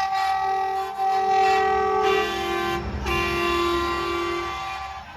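Truck air horns blowing long held blasts, several tones sounding together. The lower tone drops in pitch, the horns break off briefly about three seconds in, then sound again and fade near the end.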